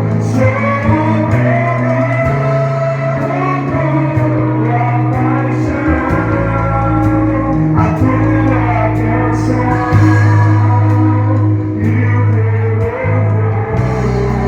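Gospel worship song: voices singing a melody over a band with sustained bass notes that change every second or two.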